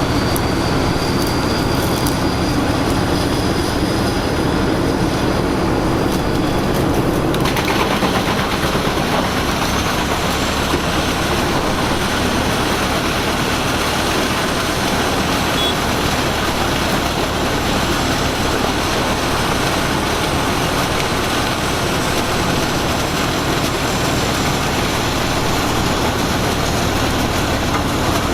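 Pezzolato PTH1200 truck-mounted wood chipper running steadily, a dense, even mechanical noise. About seven seconds in, the sound turns brighter and hissier.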